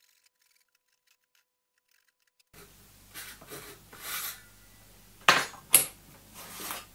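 Near silence for the first two and a half seconds, then a marking knife scoring lines into a thin wood panel in a few short strokes. This is followed by two sharp knocks on the workbench about half a second apart, the loudest sounds.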